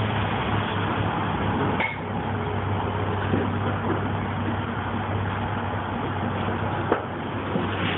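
Steady low hum and noise of an idling truck engine. A brief squeak comes near two seconds in and a single sharp click about seven seconds in, from the hand pallet jack being worked across the trailer floor.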